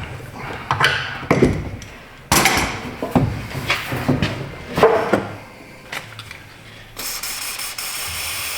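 Metal clanks and knocks as exhaust pipe and muffler parts are handled. Then, about seven seconds in, an aerosol can of Fluid Film lubricant starts spraying in a steady hiss onto the tight pipe joint.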